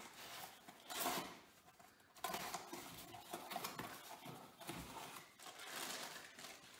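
A cardboard box being opened by hand: a knife slitting the packing tape, the cardboard flaps scraping open, and the plastic wrapping around the wheel spacers inside rustling as they are handled.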